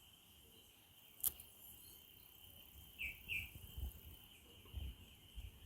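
Faint outdoor ambience: a bird gives two short chirps about three seconds in over a steady high insect drone. There is a single sharp click a little over a second in, and scattered low rumbles.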